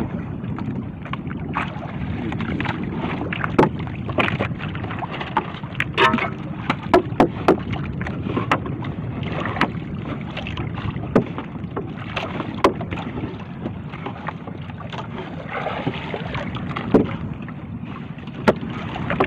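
Steady rumble of water and wind around a small fishing boat at sea, broken by a dozen or so sharp knocks and clatters as the fishing net gear is handled aboard.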